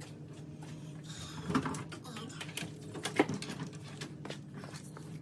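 Handling noise: a few knocks and clicks with some rustling as tools, safety gear and tangled power-tool cords are picked up and sorted, the loudest knock about three seconds in, over a steady low electrical hum.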